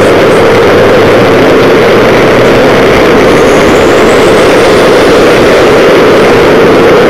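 Long strings of firecrackers going off on the ground, a loud, dense, unbroken crackle of bangs throughout.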